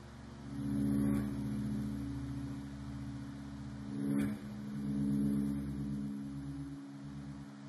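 Droning instrumental music: several held low tones layered over a steady deep rumble, swelling about a second in and again around four seconds in.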